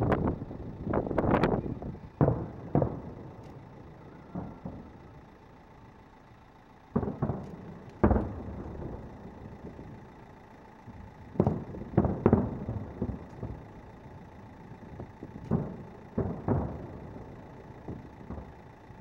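Aerial firework shells bursting in an irregular series of sharp bangs, each trailing off in a rumbling echo, with a lull of a few seconds after the first cluster.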